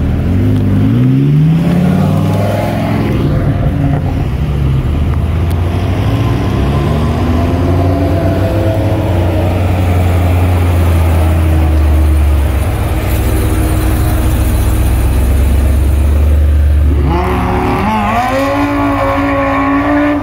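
Engines of a Lamborghini Huracán Evo and a supercharged V8 Ram TRX pickup idling and revving: revs rise in the first couple of seconds, a steady deep engine drone runs through the middle, and revs climb again near the end.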